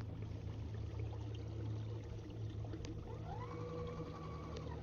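Electric trolling motor on a kayak running with a steady low hum and water noise; a little after halfway its whine rises, holds for about a second and a half and falls away near the end.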